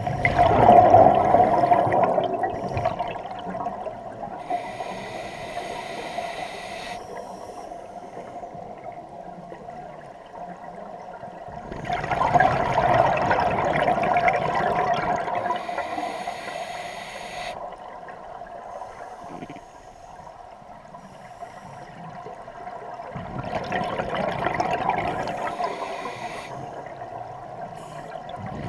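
Scuba diver breathing through a regulator, heard underwater: three long bubbling exhalations about 11 seconds apart, each followed by a quieter hissing inhalation.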